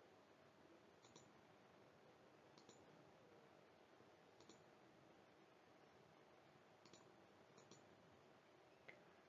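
Near silence with about half a dozen faint computer-mouse clicks, spaced one to two seconds apart.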